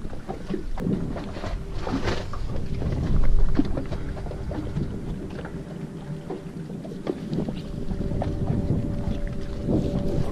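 Wind buffeting the microphone on a small boat on open water, with scattered knocks and clicks and a faint steady hum; a louder gust comes about three seconds in.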